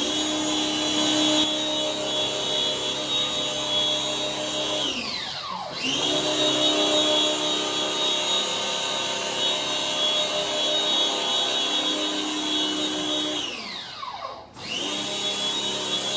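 Small electric pressure-washer pump motor running with a steady whine. It cuts out twice, its pitch falling away, about five and a half and fourteen seconds in, and starts again straight after each time.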